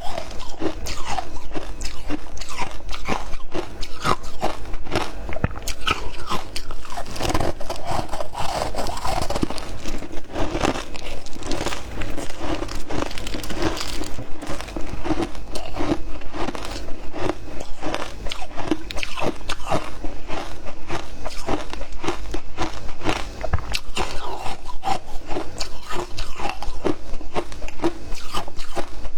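A person biting and chewing frozen matcha ice, crunching continuously with many sharp cracks as the ice breaks between the teeth.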